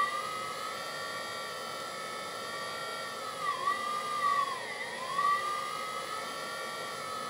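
Twin hydraulic pump of a LESU 1/14 9150 RC excavator running with a steady electric whine. Its pitch dips and recovers twice near the middle while the boom and bucket are worked.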